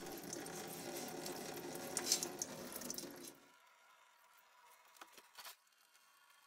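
Engine coolant draining from the radiator drain cock into a catch pan: a steady pouring that drops abruptly about three seconds in to a faint trickle with a few soft ticks.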